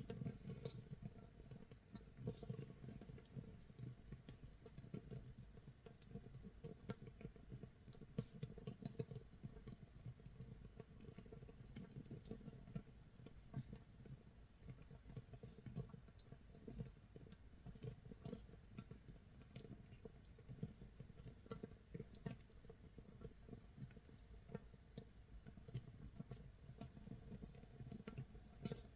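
Makgeolli base mash (mitsul) fermenting in a crock, 24 hours in: a faint, steady crackle of countless tiny bubbles popping, sounding like rain or like scorched rice crust cooking.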